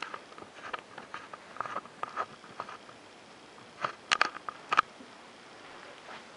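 Scattered small clicks and crackles of a new tablet and its casing being handled, with a quick cluster of sharper clicks about four seconds in.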